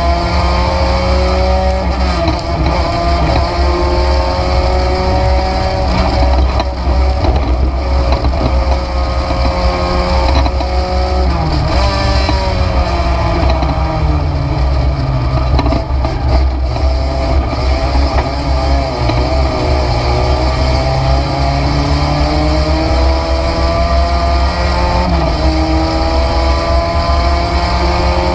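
Race car engine heard from inside the stripped cabin under racing load, its note rising and falling and dropping sharply in pitch three times, over a heavy, steady low rumble.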